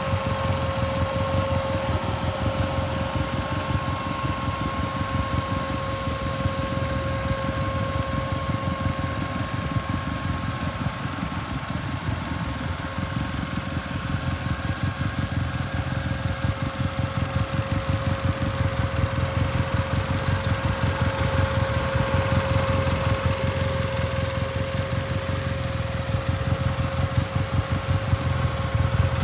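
A 2015 Arctic Cat Wildcat Trail's single-cylinder four-stroke engine idling steadily, with a rapid low thrum and a steady whine over it.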